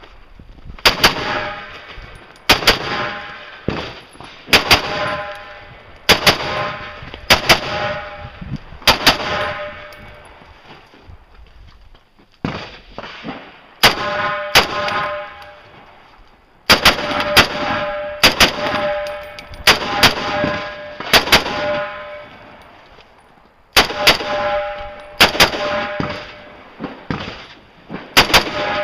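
Rifle shots fired one at a time, about one to two seconds apart, most of them followed by the ringing of a struck steel target. The shooting pauses for a few seconds about ten seconds in and again about twenty-two seconds in.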